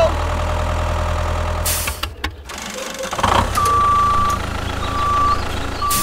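Tractor engine running with a steady low rumble for about two seconds, then after a brief break a high reversing alarm beeping three times.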